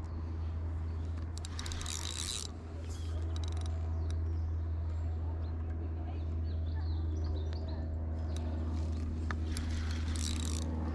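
Handling noise from a carp rod and spinning reel while a hooked fish is played, over a steady low rumble. There are two short bursts of scraping noise, about two seconds in and near the end, and faint bird chirps in between.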